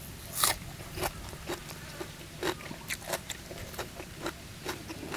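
A person chewing a mouthful of crunchy papaya salad close to the microphone. There is a sharp crunch about half a second in, then irregular crisp crunches and mouth clicks every few tenths of a second.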